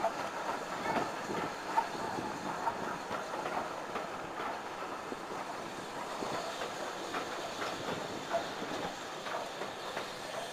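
A heritage railway train running along the line, heard from inside a carriage: a steady rolling rumble of wheels on track, with scattered clicks and knocks from the wheels over rail joints.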